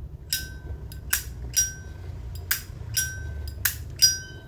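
Zippo 1941-style (Z41) lighter's lid being flicked open and snapped shut, about seven sharp metallic clinks, each with a short ring.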